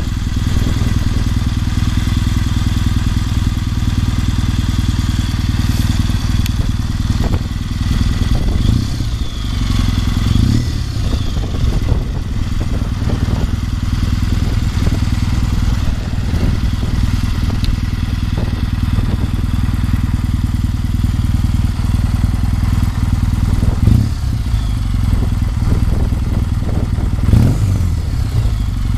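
Kawasaki W650's air-cooled vertical-twin engine idling steadily through an early-type Nasert Trad aftermarket muffler with no catalytic converter.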